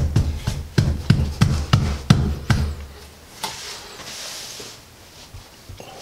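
A quick run of wooden knocks, about three a second, from the bar clamp and 2x4 brace being worked against the countertop. It stops about two and a half seconds in and is followed by a short rustle.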